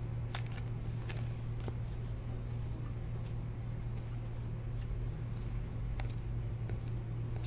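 2017 Topps Chrome baseball cards being slid and flipped through by hand, with scattered faint clicks and scrapes of the glossy card stock over a steady low hum.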